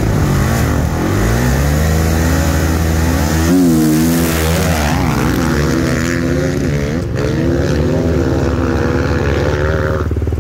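Dirt bike engines revving hard, then accelerating away, the pitch rising and dropping again and again as the bikes pull through the gears.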